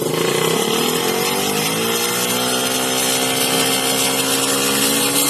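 Drag-racing motorcycle engine revved up from idle over about two seconds, then held steady at raised revs.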